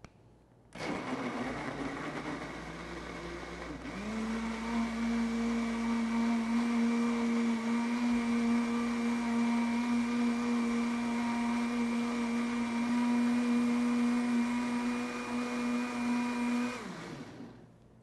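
Electric countertop blender switched on, blending juice with whole strawberries. About three seconds after it starts, the motor's pitch steps up to a higher, steady whine, and near the end it is switched off and winds down.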